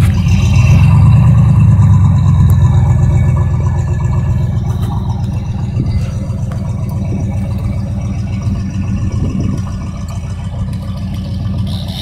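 Pickup truck engine running hard in four-wheel drive as the truck pulls on a rope to bring a tree down. It is loudest for the first few seconds, then eases off to a lower steady rumble.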